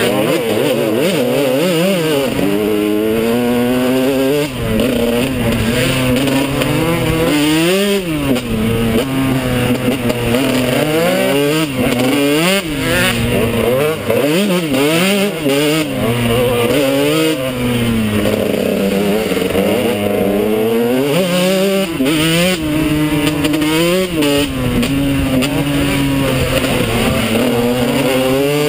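Kawasaki 125 two-stroke enduro bike engine heard close up from a camera mounted on the bike, revving hard and easing off over and over, its pitch climbing and falling every second or two as the throttle is worked.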